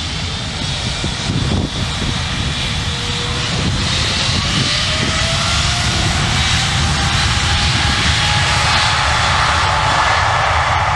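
Jet engines of a large Emirates wide-body airliner moving along the runway: a steady rushing noise with a whine that rises gently in pitch and slowly grows louder.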